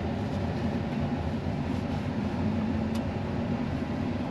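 Loader engine running steadily under way, heard from inside the cab as a continuous low drone.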